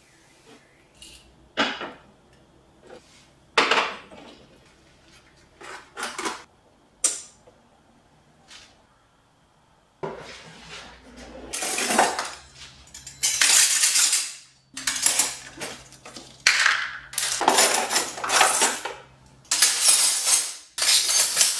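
A few scattered knocks and taps, then, from about halfway, dense bursts of metal kitchen utensils and cutlery (spoons, ladles, whisks, tongs) clattering and clinking against each other as they are laid out on a countertop.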